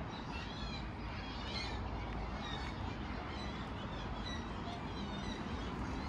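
Gulls calling again and again, short arching cries, over a steady low rumble of background noise.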